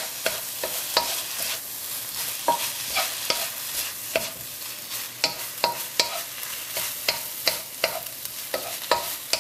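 Fried rice sizzling in a hot pan as it is stirred and tossed, the stirring utensil knocking against the pan in irregular strokes about once or twice a second, some knocks ringing briefly. The thick sweet soy sauce just poured in is being mixed through the rice.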